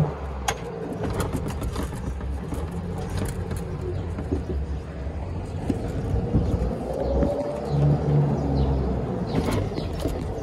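Club Car golf cart driving, with a steady low hum and a thin whine that rises in pitch about seven seconds in and again near the end. Scattered clicks and rattles run through it.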